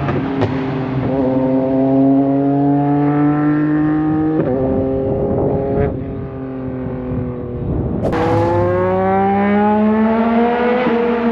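Yamaha MT-09 SP's 890 cc three-cylinder engine breathing through a full titanium exhaust, pulling through the gears. Its pitch climbs steadily in each gear and breaks at the shifts, about four and a half and eight seconds in.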